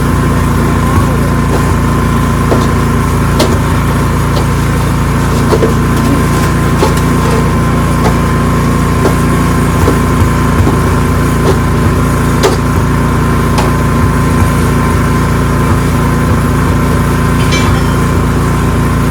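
Ariens 624E snowblower engine running steadily at working speed, with a few scattered sharp ticks over it.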